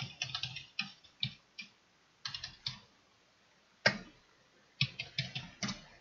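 Computer keyboard typing in short bursts of keystrokes with pauses between them, and one louder single keystroke about four seconds in.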